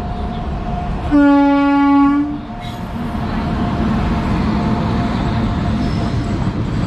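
A train horn sounds one steady blast of a little over a second, about a second in, over the continuous rumble of a train running on the rails.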